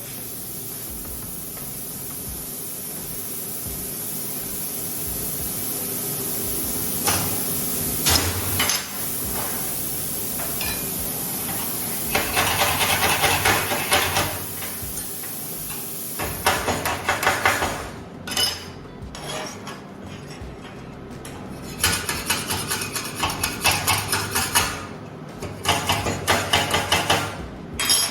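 Steady hissing for the first several seconds, then a welding arc on steel: about four short runs of dense crackling sizzle, each one to three seconds long, with pauses between them.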